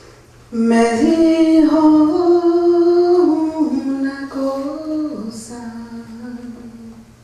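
A voice singing one slow, drawn-out phrase without words: a held note steps up, then comes down in steps and fades near the end.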